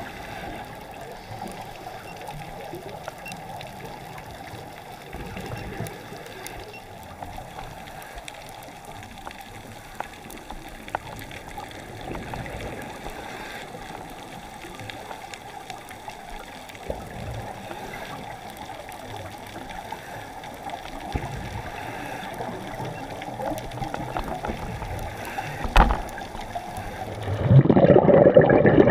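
Underwater sound picked up by a camera in its housing: a muffled, steady water hiss with scattered small clicks and crackles. About a second before the end it switches to a louder, duller rush of water.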